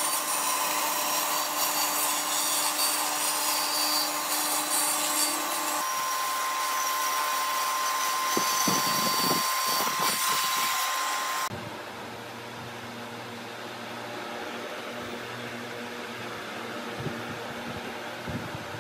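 Band saw running and cutting a curve through a wooden tabletop, a loud, steady whine of blade and wood. About two-thirds of the way through it cuts off abruptly and a quieter, steady low machine hum carries on.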